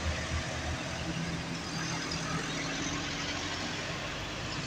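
Road traffic going up a hill: a truck's diesel engine throbbing low for the first couple of seconds, then cars and trucks driving by with engine hum and tyre noise.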